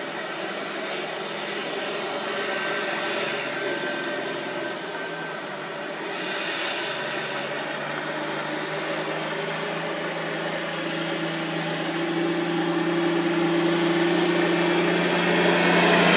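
A motor vehicle's engine running steadily, growing louder over the last few seconds as it comes closer.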